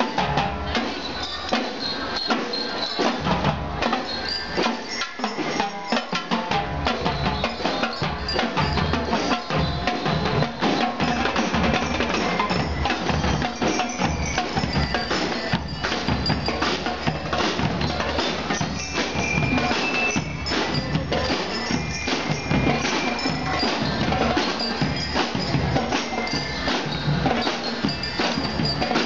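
School drum and lyre band playing: a driving beat on snare and bass drums with bell lyres ringing out a high metallic tune over it. The low drums grow heavier about six seconds in.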